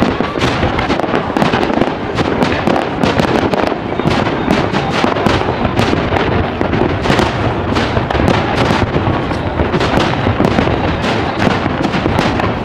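Aerial firework shells bursting in a continuous barrage: many sharp bangs in quick succession, one after another with no pause.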